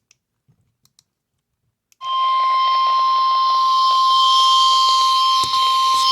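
NOAA Weather Radio warning alarm tone: one steady high beep near 1 kHz over radio hiss, starting abruptly about two seconds in after a few faint clicks. The tone signals that a warning, here a severe thunderstorm warning, is about to be broadcast.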